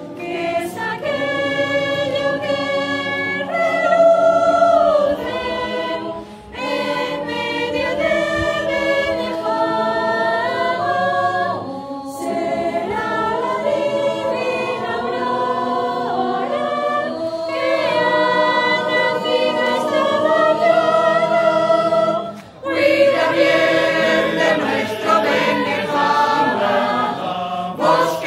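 Choir singing a slow Spanish devotional hymn in several voices, with short breaths between phrases, about six seconds in and again about two-thirds of the way through.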